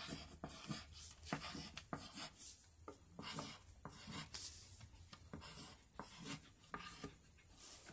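Wooden graphite pencil scratching on paper in short, irregular strokes as a picture is drawn, fairly quiet.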